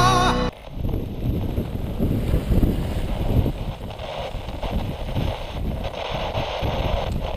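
Wind buffeting the microphone in uneven gusts at sea, over a steady rush of noise, after background music cuts off about half a second in.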